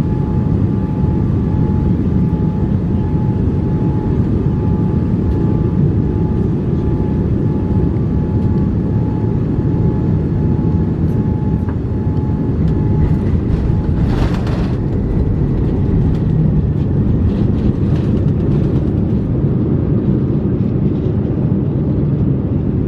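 Airliner cabin noise during a night landing: a loud, steady rumble of jet engines and airflow under a thin, steady whine that stops about thirteen seconds in. A brief rushing burst follows a second later as the plane comes down onto the runway.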